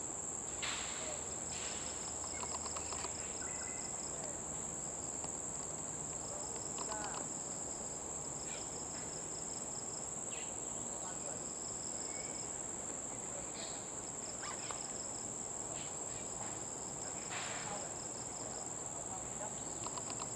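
Tropical insect chorus: a steady high-pitched drone with short pulsed trills repeating every second or two, and a few brief bird calls scattered through it.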